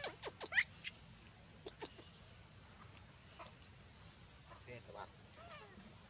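A young macaque gives a few short, high squealing calls in the first second, the last and loudest one arching up and down, with a couple of fainter calls about five seconds in. A steady high insect drone runs underneath.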